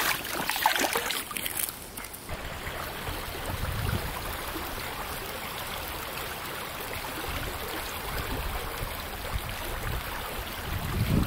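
A small creek running steadily over its bed. A few short sharp noises come in the first two seconds, and low rumbles come about four seconds in and again near the end.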